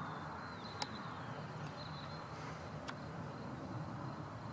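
Boeing 777 freighter's GE90 jet engines heard from afar as a low steady rumble. Faint high chirps sound over it, and there are two sharp clicks, about one and three seconds in.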